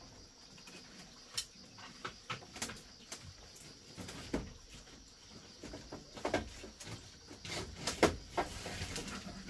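A series of light knocks and clatters at irregular intervals, the loudest a sharp knock about eight seconds in.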